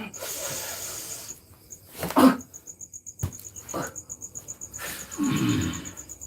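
A person's heavy breathing and throat sounds: a long hissing exhale at the start, a short loud throaty burst about two seconds in, and another heavy breath near the end. Crickets chirp steadily in rapid pulses throughout.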